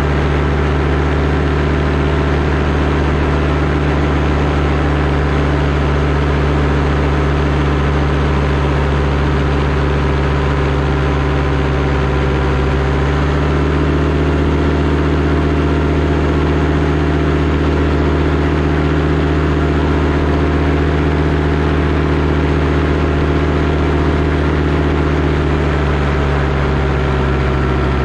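Paramotor engine and propeller running steadily under power, its engine speed shifting slightly about halfway through and again near the end.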